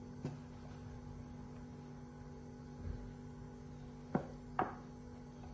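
Double cream poured from a carton into a glass bowl, faint under a steady electrical hum. Two light knocks come near the end as the carton is handled.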